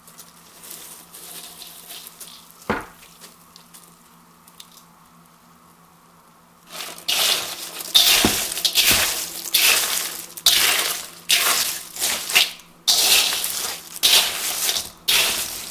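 Chex cereal coated in melted chocolate being stirred and tossed with a spatula in a large stainless steel mixing bowl: loud rustling, scraping strokes about once a second, starting about seven seconds in. Before that there is a quieter stretch with a faint steady hum and a single knock.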